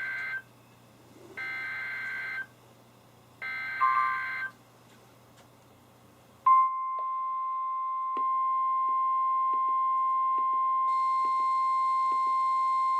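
NOAA Weather Radio Emergency Alert System signal for a special marine warning. Short warbling SAME digital header bursts of about a second each, then from about six and a half seconds in the steady 1050 Hz warning alert tone. Regular pulsing beeps join from about eight seconds in, and a higher shrill alarm tone from about eleven seconds in, as the weather radios set off their own alarms.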